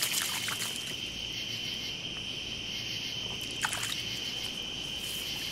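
A steady chorus of night insects: a constant high-pitched trill, with a couple of brief faint clicks, one near the start and one about two-thirds of the way through.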